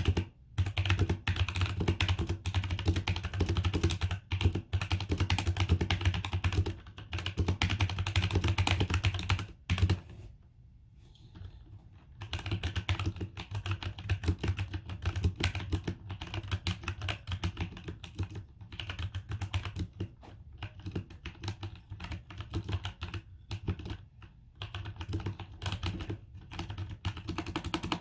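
Typing on a Velocifire TKL78 tenkeyless mechanical keyboard with tactile, non-clicky Outemu Brown switches, in rapid keystrokes. It is heavier and louder for the first ten seconds, pauses briefly, then goes on more lightly.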